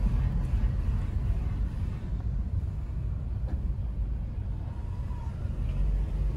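Steady low rumble of a car driving slowly through town streets, heard from inside the car's cabin.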